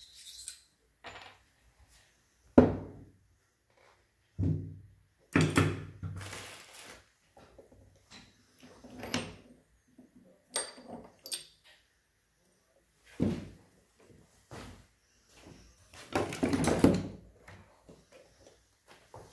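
Irregular knocks and clunks, with short bouts of clattering, like objects being picked up and set down; the longest clatter lasts about a second and a half, about three-quarters of the way through.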